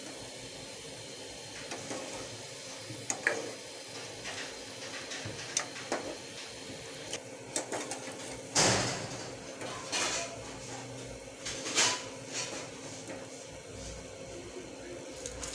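A metal spoon clinks and scrapes against a steel frying pan as fried lentil fritters (dahi bara) are turned and lifted out of the hot oil, over a faint sizzle of frying. The knocks are scattered, and the loudest come about halfway through and again a few seconds later.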